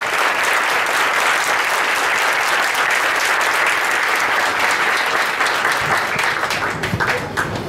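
Audience applauding: dense clapping from many hands that thins to a few scattered claps near the end.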